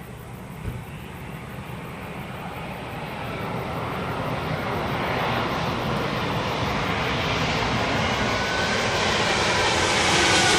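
Jet airliner's engines heard as the aircraft approaches, a rushing noise growing steadily louder, with a faint whine that falls in pitch near the end. A brief knock sounds about half a second in.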